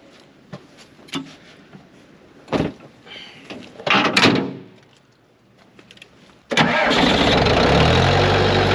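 A skid loader's engine starts about six and a half seconds in, then settles into a steady idle as it warms up in the cold. Before it starts there are only a few scattered knocks and clunks.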